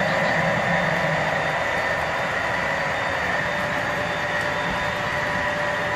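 Model freight train running steadily along the track: an even rolling hum with a few constant whining tones.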